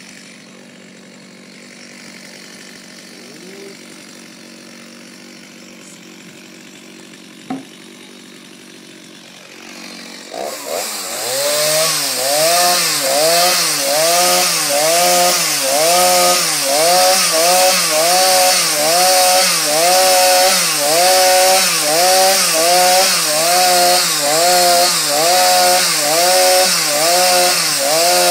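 Chainsaw engine idling, then about ten seconds in throttled up to run loud and cut into wood. Its pitch rises and falls in a steady rhythm about once a second as it cuts.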